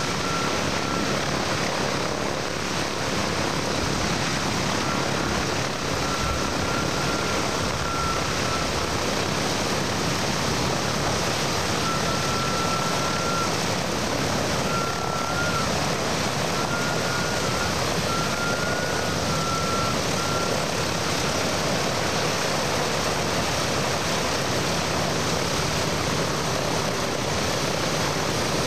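Steady drone of B-17G Flying Fortress bombers' Wright Cyclone radial engines in flight, a dense even noise with no swell. A faint thin wavering whistle comes and goes over roughly the first twenty seconds.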